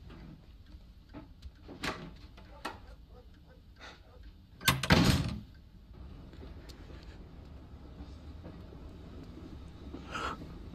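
A front door shutting hard about halfway through, a sharp double knock, after a few faint clicks and knocks; a steady low rumble follows.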